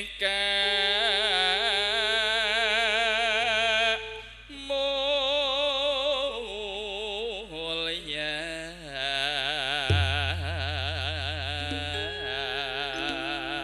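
A solo voice singing a slow, ornamented Javanese religious song with heavy vibrato and long held notes, over a low, held accompaniment that grows louder about ten seconds in.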